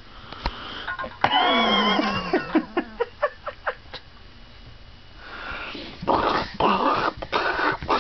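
A baby squeals with a high voice that glides up and down, then lets out a quick run of short, clipped laughing breaths. A few seconds later comes a string of breathy, unvoiced huffs of excited breathing.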